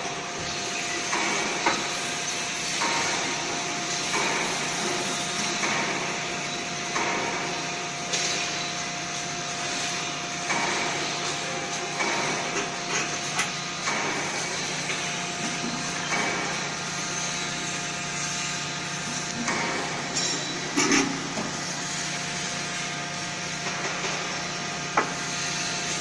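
Vacuum furnace door being shut and clamped by hand: irregular metal knocks and clanks, over a steady machine hum with a constant tone.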